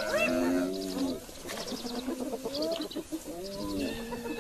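Animal calls from a hyena kill of a buffalo calf: a string of drawn-out, wavering calls that rise and fall in pitch, loudest at the start.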